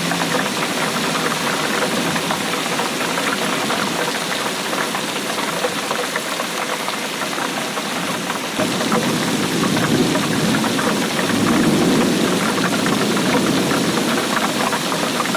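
Steady rainfall: a dense patter of drops over a hiss of rain, turning a little heavier and deeper about nine seconds in.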